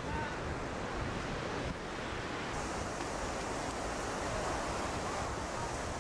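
Steady rush of ocean surf breaking on a beach, with wind buffeting the microphone and faint distant voices now and then.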